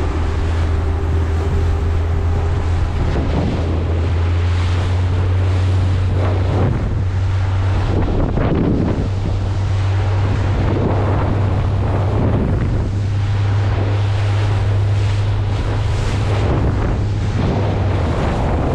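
Boat running at speed over choppy sea: a steady low engine hum under wind buffeting the microphone, with surges of splashing spray from the hull every couple of seconds.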